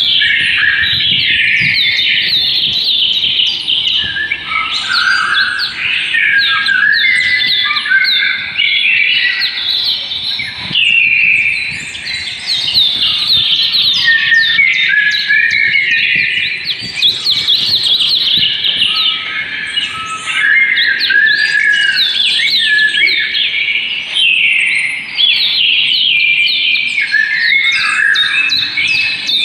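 Many birds chirping at once, a dense, continuous chatter of short high chirps and quick glides.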